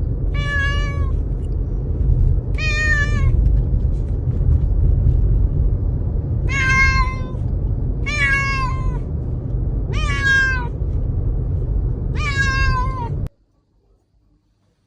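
Sphynx cat meowing six times, each a long call that bends down in pitch at the end, a second or two apart, over a steady low rumble. The sound cuts off suddenly near the end.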